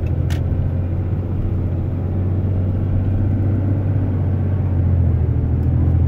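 6.7 L Cummins turbo-diesel engine pulling under acceleration, heard from inside the cab as a steady low drone, with a faint turbo whistle as boost builds toward about 10 psi. There is a brief click just after the start.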